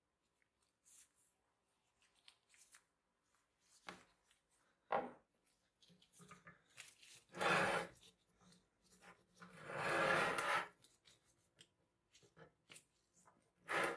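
Small metal clicks and scrapes as gloved hands turn and work a metal seaming roller on its threaded stud under an antique can sealer's cast-iron frame. There are two louder grating rubs, each about a second long, about halfway through and again two seconds later.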